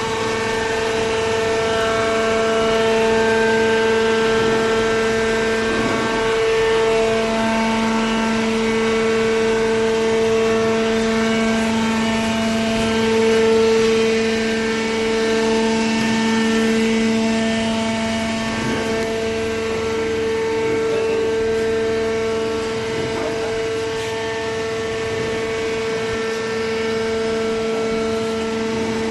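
Automatic horizontal hydraulic cardboard baler running: a steady machine hum with a tonal whine from its hydraulic power pack, the lower tone growing stronger about six seconds in.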